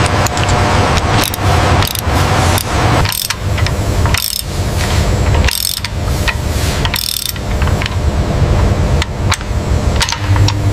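Ratchet and wrench clicks and metallic clanks from hand tools on an assembly line, over a steady low machinery hum.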